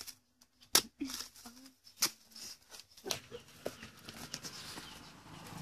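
A small axe chopping into a rotting palm trunk: three sharp strikes about a second apart. A steadier, noisy outdoor background follows in the second half.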